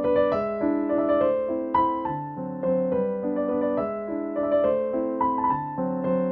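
Background piano music: a gentle melody of single notes over held chords, a few notes a second.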